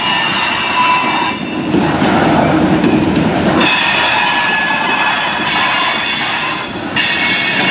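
Freight cars rolling past a grade crossing: the rumble and clatter of steel wheels on the rails, with a high steady wheel squeal. The squeal breaks off for about two seconds after the first second, while a heavier rumble takes over, then comes back.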